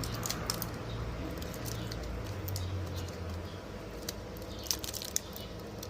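Scattered light clicks and rustling from a mini driving light and its packaging being handled, with a denser run of clicks near the end, over a steady low hum.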